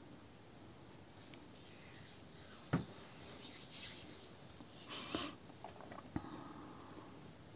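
A spatula stirring and scraping through thin liquid in a stainless steel saucepan, with a few sharp knocks of the spatula against the pan, the loudest about three seconds in.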